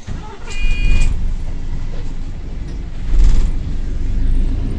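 Double-decker bus diesel engine pulling away and accelerating, a loud low rumble that swells twice, with its burst turbo exhaust giving the engine its leaky note. A short high electronic tone sounds about half a second in.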